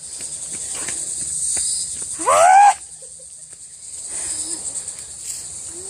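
A steady, high insect chorus droning throughout. About two seconds in, a person gives one short, loud cry.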